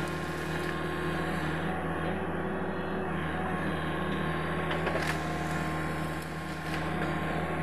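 Sany SY75C excavator's diesel engine running steadily under work, with a couple of brief knocks, one at the start and one about five seconds in.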